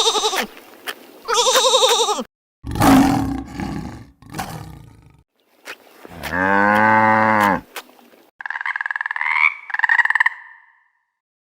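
A string of different animal calls edited back to back: quavering calls in the first two seconds, a long low call that rises and falls in pitch about halfway through, then higher pulsed calls near the end, each cut off abruptly.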